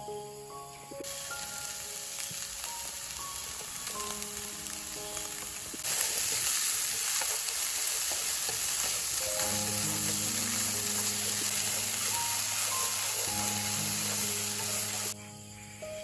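Food sizzling as it fries in hot oil. The sizzle starts about a second in, grows louder about six seconds in, and cuts off suddenly shortly before the end.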